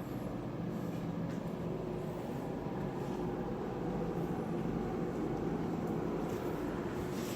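Used 1800-size display showcase refrigerator running on test: a steady hum from its compressor and fans, with several unchanging tones.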